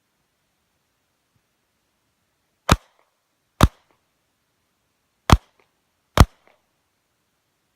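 Four pistol shots in two pairs, each pair a little under a second apart with about a second and a half between the pairs: a competitor engaging targets with two shots each.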